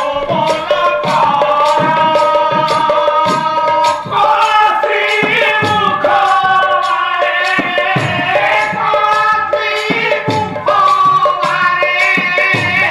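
Odia Pala music: a male voice holding long, wavering notes over a hand drum and small hand cymbals keeping a steady beat.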